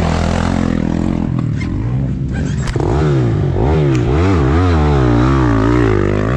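Yamaha YZ125 two-stroke engine running at a steady note while the bike lies fallen. About three seconds in it starts revving up and down again and again as the bike gets going, with a few clattering knocks just before.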